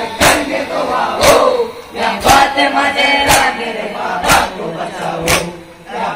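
A crowd of Muharram mourners doing matam, striking their chests in unison with sharp slaps about once a second, with voices shouting and chanting between the strikes.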